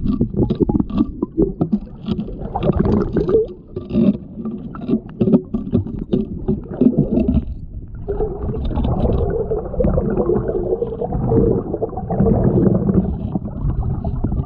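Water in a rocky tide pool heard underwater through a submerged camera: a muffled, low rumbling and sloshing of surge, with many small clicks and crackles. It drops away briefly about halfway through.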